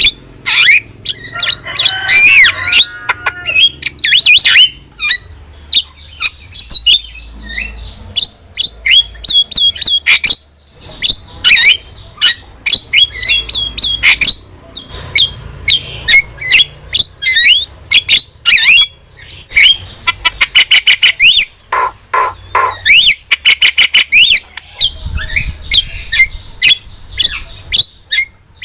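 Javan myna singing a loud, rapid, unbroken run of sharp whistles, squawks and chattering notes, with quick rising and falling whistled glides.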